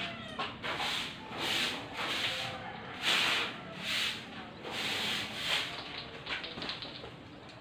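Broom sweeping a concrete floor: a run of bristle swishes, about one every second or less, growing weaker near the end.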